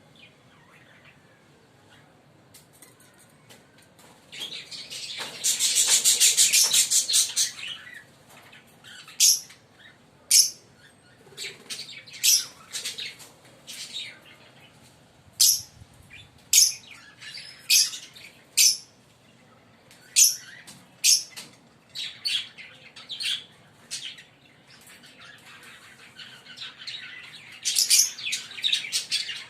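A pair of Fischer's lovebirds chirping: after a few quiet seconds, a loud run of rapid chattering, then sharp single chirps about once a second, and another burst of chatter near the end.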